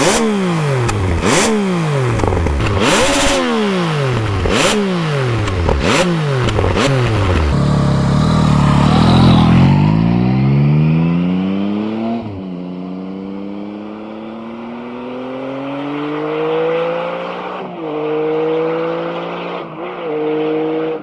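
Yamaha XSR900 inline-three through an aftermarket MIVV oval carbon exhaust: about five quick throttle blips, each dropping back with popping and crackling on the overrun. It then drives past, its pitch falling as it goes by, and pulls away, the engine note climbing with a few short dips as it shifts up.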